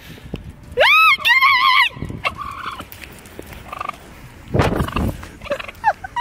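A wild turkey tom gobbles once, about a second in: a loud call that arches up and down, then breaks into a quick, rattling warble. A duller burst of noise follows about four and a half seconds in.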